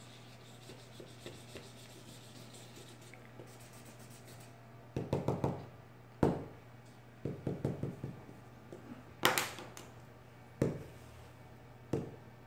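Felt-tip marker scribbling quickly back and forth on paper, in short runs of rapid strokes that start about five seconds in, with a few sharp knocks against the desk between runs, the loudest about nine seconds in.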